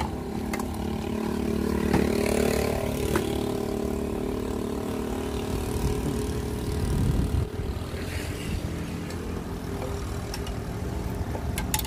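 A motorcycle engine idling steadily close by, with a few sharp clinks of kitchen utensils.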